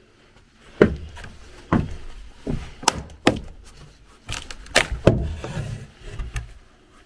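A worn, rotted wooden stair tread being knocked loose and pulled out: about nine irregular hollow wooden knocks and thuds, with the loudest about a second in and around five seconds.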